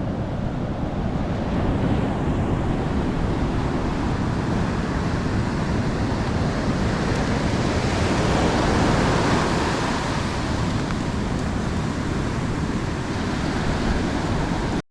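Heavy surf breaking and washing up the beach, a steady wash of noise with wind buffeting the microphone; a wave surges in louder about halfway through.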